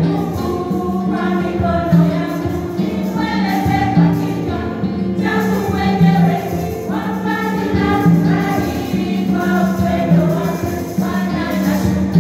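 A choir singing a gospel church song over instrumental accompaniment, with jingling percussion such as a tambourine and a steady beat.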